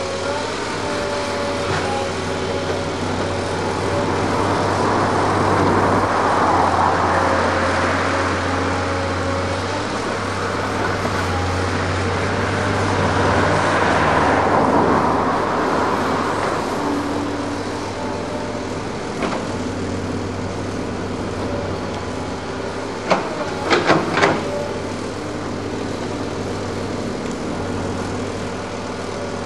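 Hydraulic excavator digging wet clay: its diesel engine runs steadily with a hum and steady whine, and swells louder twice as the bucket works. A few sharp knocks come a little over twenty seconds in.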